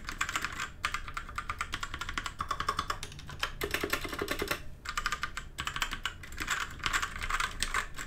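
Fast continuous typing on a DREVO Calibur V2 mechanical keyboard with Outemu Red linear switches: a dense run of key clacks with a few brief pauses. The lower keys give a little tinny sound.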